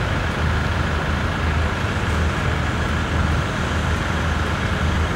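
Heavy diesel engine of a truck-mounted mobile crane running steadily, a low even rumble with a steady whine above it.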